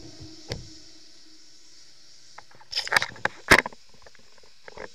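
A hand handling a suction-cup-mounted action camera: a few sharp knocks and taps on the camera, the loudest pair about three and three and a half seconds in. At the start, the last note of background music dies away.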